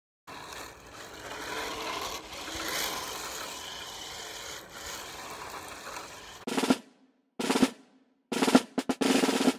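A radio-controlled drift car running on asphalt: steady tyre and wind noise with a faint high whine. Then three loud drum hits about a second apart, the last drawn out into a short roll.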